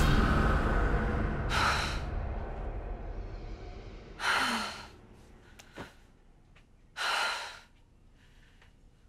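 A person breathing hard: three short gasping breaths, about a second and a half, four seconds and seven seconds in, while a rushing background sound dies away over the first few seconds.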